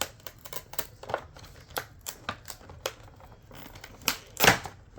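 Toy packaging being handled and opened: irregular crackling and clicking, with two louder crackles about four seconds in.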